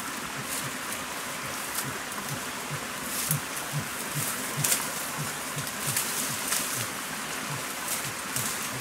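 Dry bamboo leaves and stalks rustling and crackling as someone pushes through a bamboo thicket, with soft footfalls over a steady hiss.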